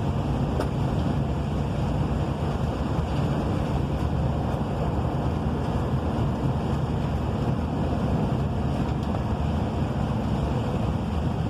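Steady rain and wind, a constant low rumbling hiss with no breaks, wind buffeting the microphone.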